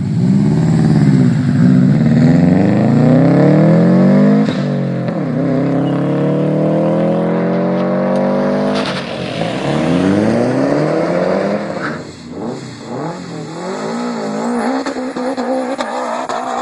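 2003 Subaru Impreza WRX with an Invidia aftermarket exhaust accelerating hard. Its turbocharged flat-four's pitch climbs through three pulls, broken by upshifts about 4.5 and 9 seconds in. About 12 seconds in, a different Impreza, a GC8, takes over with quieter revs that rise and fall unevenly.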